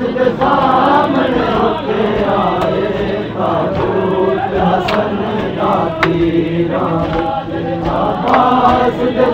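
A crowd of men chanting a nauha, a Shia mourning lament, together in unison, with two sharp hits about five and six seconds in.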